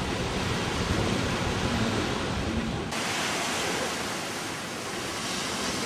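Steady rushing noise of sea surf on a sandy beach, mixed with wind, turning brighter and hissier about three seconds in.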